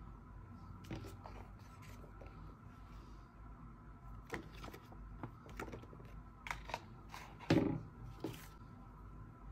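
Hands handling packaging and small accessories: scattered clicks, taps and short rustles, with a louder knock and rustle about seven and a half seconds in, over a faint steady hum.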